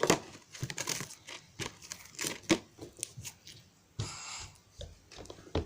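Stiff slime being kneaded and stretched by hand with hair conditioner worked in to soften it, giving irregular crackles and small pops.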